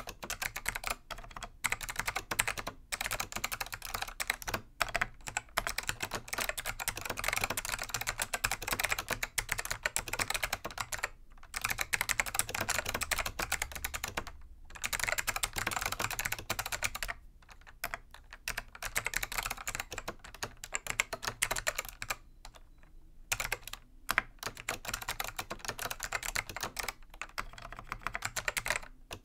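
Continuous touch-typing on a Dell AT101 keyboard with click-modded Alps SKCM Black switches: a dense run of sharp, clicky keystrokes, broken by a few brief pauses.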